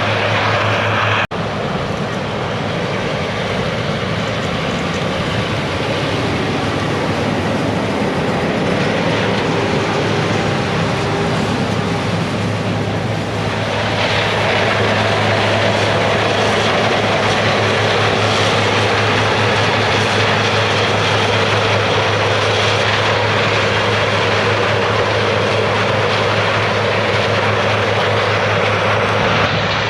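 Heavy diesel harvest machinery running steadily under load, a constant low engine hum with machine noise over it. The sound drops out for a moment about a second in, and its tone shifts slightly about halfway through.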